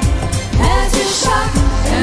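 New-age pop song: a singing voice over a steady bass line.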